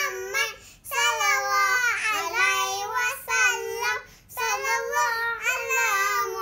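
Young children singing a selawat, a Malay devotional chant in praise of the Prophet Muhammad, without accompaniment, in sung phrases with short breaks about a second in and about four seconds in.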